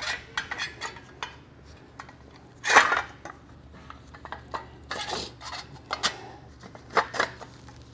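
Metal clinks and clatter of a transmission parking brake's steel brake shoes being handled and seated against the backing shield, with a louder clatter about three seconds in.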